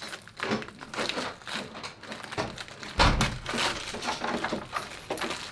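Plastic snack wrapper crinkling as a Rice Krispies Treat is unwrapped by hand, with a louder thump about three seconds in.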